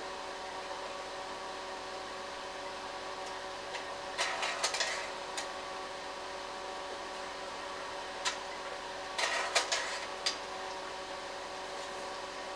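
Slide projector running with a steady fan and motor hum, its slide-change mechanism clacking in a short run of clicks twice, about four and nine seconds in, as the next slides drop into place.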